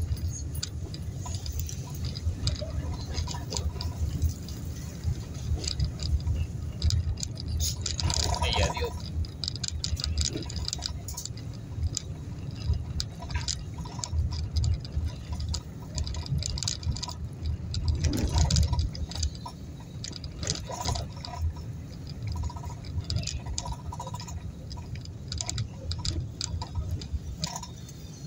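Car interior while driving slowly over a rough street: a steady low rumble of engine and tyres, with frequent small clicks and rattles.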